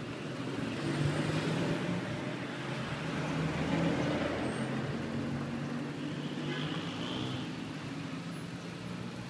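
A motor vehicle's engine running, with a low steady hum over a wash of road noise, loudest over the first four seconds and then easing off.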